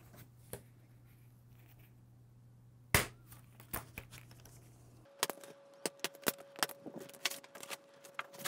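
Side cutters snipping through box banding: one sharp snap about three seconds in. From about five seconds on, a run of irregular clicks and scraping as the cut straps are pulled off the cardboard box.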